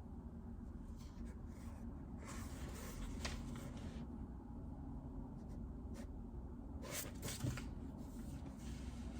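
Quiet desk sounds: a few soft taps and two short stretches of scratchy rustling, over a low steady room hum.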